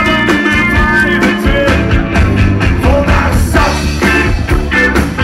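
Live rock band playing loud: a driving drum beat under electric guitar and keyboard lines, heard from the audience.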